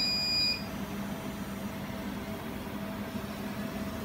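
Jewelry laser welding machine running with a steady electrical hum and fan noise. A short, high electronic beep sounds at the very start and lasts about half a second.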